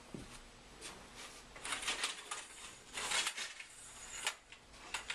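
Rustling and light clattering knocks as the frame pieces of a folding kayak are handled and set down.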